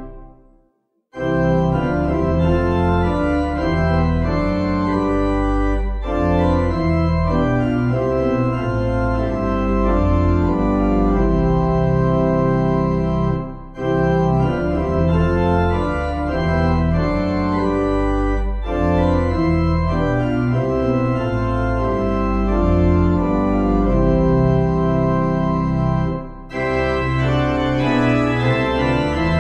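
Organ music playing held chords in phrases, with short breaks between the phrases. It begins after about a second of silence.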